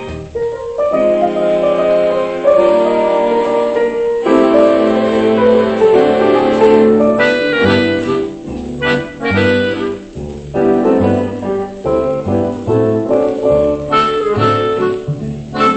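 Instrumental break of a dance-band foxtrot played from an old 78 rpm shellac record, with no singing: held chords at first, then a steady beat with a bass line.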